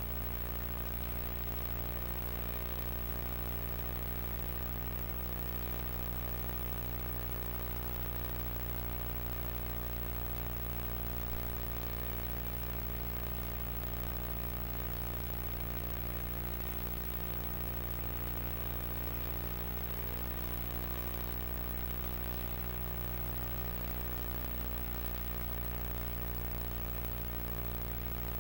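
Steady electrical hum with a buzzy stack of overtones over faint tape hiss, unchanging.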